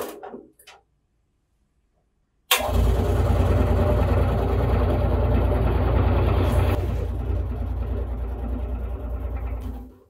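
Commercial bread slicer's motor and reciprocating blade frame starting abruptly and running steadily with a loud low hum, then cutting off suddenly near the end, the way the machine stops when its safety cover is raised. A sharp clack of the metal cover comes right at the start.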